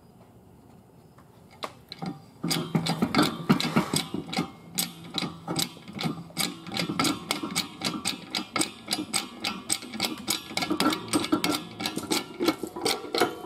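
A press being worked to push a shaft out of a gearbox sprocket bearing: rapid repeated metallic clicking, about three to four clicks a second, starting about two seconds in after a couple of light knocks.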